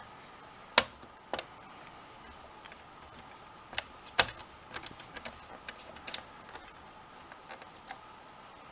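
Scattered sharp clicks and small ticks of screws and plastic console parts being handled and set in place during reassembly of a PlayStation 4, two louder knocks standing out, over a faint steady hum.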